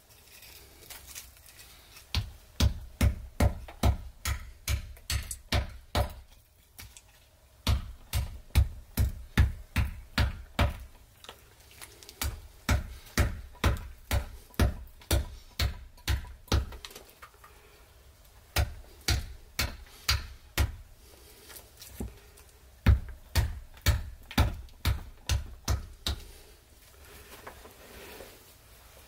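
Stone axe chopping pine fatwood (Kienspan) splinters on a wooden chopping block: sharp knocks with a deep thump, about two a second, in runs of a few seconds broken by short pauses.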